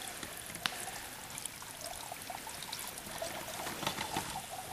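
Running water, a steady trickling rush, with a few light clicks and knocks over it.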